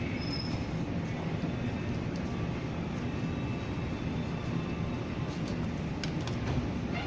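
Steady low mechanical rumble, with a few light clicks near the end.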